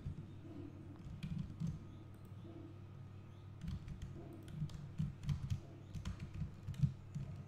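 Computer keyboard keystrokes and clicks, irregular and close to the microphone, over a steady low hum.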